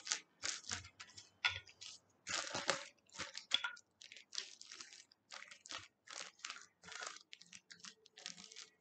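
Plastic sheet crinkling and rustling in short, irregular bursts as modelling clay is rolled and pressed flat inside it.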